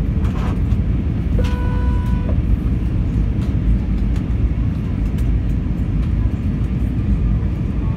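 Steady low rumble of an Airbus A321's engines and airflow heard inside the cabin on final approach. A short steady tone sounds about a second and a half in.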